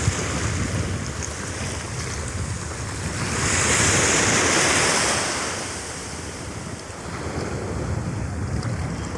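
Sea surf washing through the shallows, with wind buffeting the microphone as a low rumble. Near the middle the surf swells to a louder hiss for about three seconds, then falls back.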